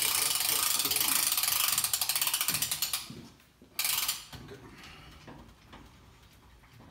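Hand-cranked ratchet winch of a compound-bow draw board clicking rapidly for about three seconds, then a second short burst about a second later, followed by faint ticks. The crank is being worked while the bow's draw weight is measured.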